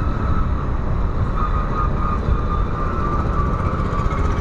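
Steady wind rumble on the microphone of a moving motorcycle, with the motorcycle's engine running underneath.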